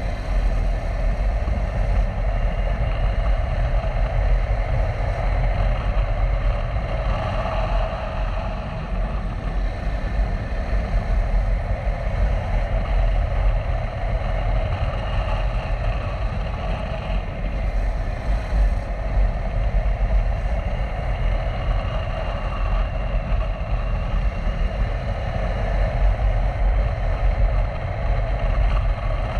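KTM 390 Adventure's single-cylinder engine running steadily while riding at a constant pace, with a deep low rumble and a steady rush of riding noise.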